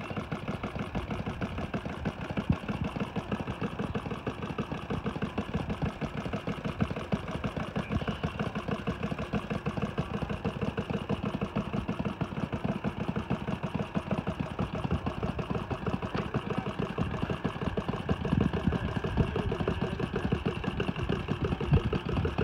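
An engine idling steadily, with an even, rapid firing rhythm that does not change.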